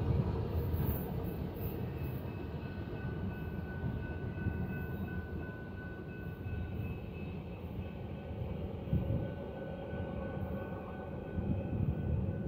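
Rumble of a Union Pacific autorack freight train's cars rolling away down the track, with a thin steady high whine running through it.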